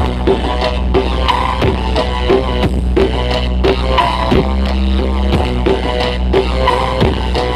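Loud electronic dance music played through a large carnival sound system, with a heavy steady bass drone underneath and a regular beat about three times a second.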